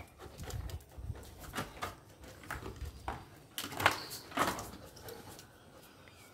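Black Labrador tussling with a man over a white packet: faint scuffling and rustling, with a few short louder sounds about four seconds in.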